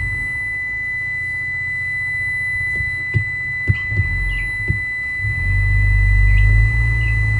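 Toyota Tacoma engine idling in gear with the parking brake set; its hum grows louder for a couple of seconds past the middle as the load rises. A steady high-pitched tone sounds throughout, and there are a few light clicks.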